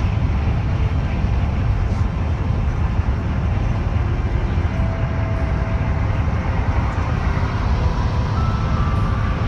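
Steady low rumble of a moving vehicle, with faint thin tones about halfway through and again near the end.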